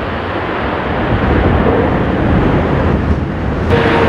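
Airbus A330-323X's twin Pratt & Whitney PW4000 turbofans rumbling at high thrust as the airliner climbs away, with wind noise on the microphone. Near the end the sound cuts abruptly to another jet's engine noise with a steady whine in it.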